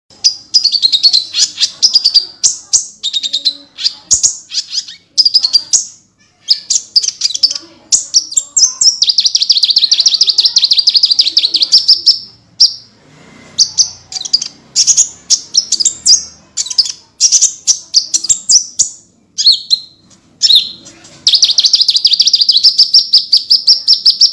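A kolibri ninja (konin) sunbird singing non-stop in loud, high, very fast trills and twitters. It breaks into two long unbroken rapid-fire trills, one about nine seconds in and one near the end: the 'tembakan' bursts that keepers prize in a bird that is 'gacor', in full song.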